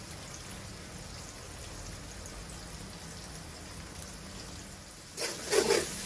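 Onions and tomatoes sizzling steadily in a stainless steel wok over a gas flame. About five seconds in, a metal spatula starts stirring and scraping them around the pan, louder than the sizzle.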